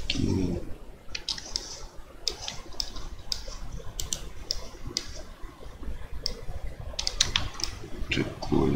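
Computer keyboard keys and mouse buttons clicking in scattered, irregular taps.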